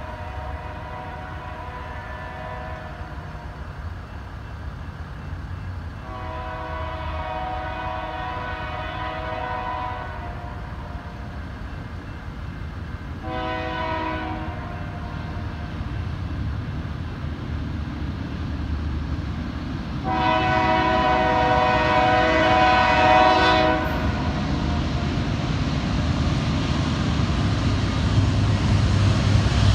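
BNSF locomotive air horn, several tones sounding together as a chord, blowing two long blasts, a short one and a long one: the grade-crossing signal. Under it the low rumble of the approaching train grows steadily louder.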